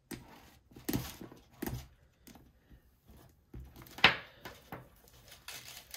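Handling noises from a leather handbag being turned over and worked with by hand: soft rustles and a few light knocks, with one sharper click about four seconds in.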